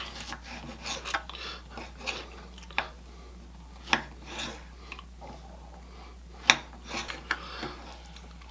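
Kitchen knife slicing and dicing a fresh tomato on a wooden cutting board: irregular sharp taps of the blade on the board, with soft cutting sounds between them.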